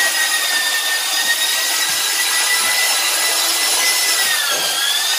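Handheld electric paddle mixer running as it stirs stove-laying mortar in a bucket: a steady motor whine that dips in pitch briefly near the end.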